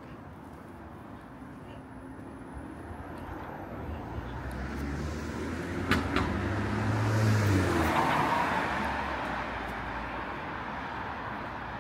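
A car passing close by on the street: engine hum and tyre noise swell to a peak about two-thirds of the way through, then fade into steady traffic background. A single sharp click sounds just before the peak.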